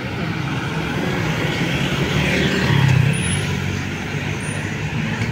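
Bus engine and road traffic noise, a steady rumble that grows louder to a peak about three seconds in and then eases slightly as the vehicle goes by.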